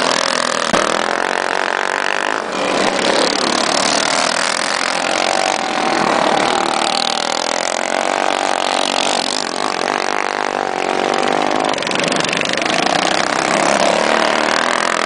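Several racing kart engines running hard at high revs, their pitch rising and falling and overlapping as the karts pass.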